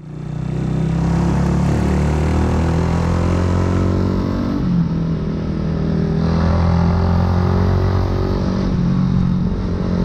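A 2008 Yamaha YZF-R125's single-cylinder four-stroke engine running through a full aftermarket exhaust, with its note dipping and shifting briefly about halfway through.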